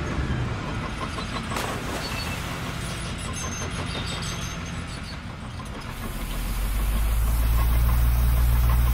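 Heavy vehicle engine running steadily, with a low hum that grows louder about six seconds in.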